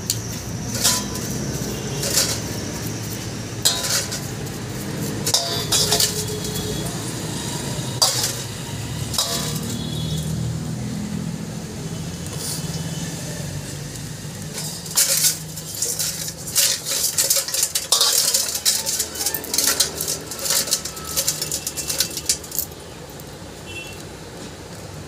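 Small steel motorcycle engine parts (rocker arms and a camshaft) clinking and scraping against a steel bowl as they are washed by hand in petrol: separate sharp clinks, with a quick run of them in the second half.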